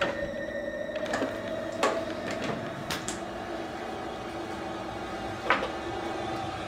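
A steady humming drone with a few scattered clicks and knocks, the loudest knock about five and a half seconds in.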